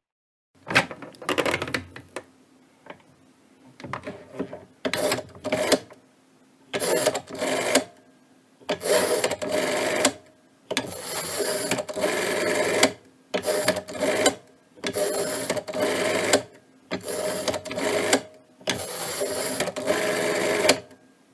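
Telephone rotary dial being turned and let run back, again and again: about a dozen mechanical whirring, clicking runs of differing lengths, from half a second to two seconds, with short pauses between them.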